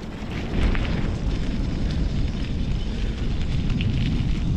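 Wind buffeting the microphone of a camera carried at a run, a heavy uneven rumble, with a few faint footfalls on pavement.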